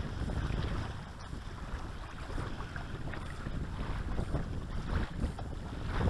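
Wind buffeting the microphone: a low, uneven noise that rises and falls with the gusts.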